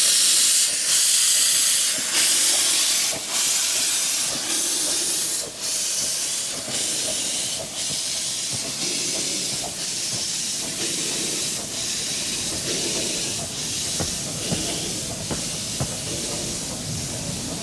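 A 15-inch-gauge steam locomotive working, its loud hiss of steam broken into even beats a little more than once a second and slowly fading. Wheel-on-rail rumble and clicks grow toward the end.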